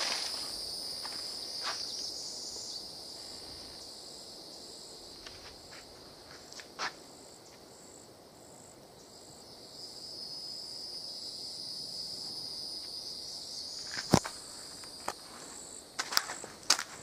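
Steady high-pitched insect chorus with a faster pulsing trill above it, over a few footsteps: the sharpest about fourteen seconds in and several more near the end.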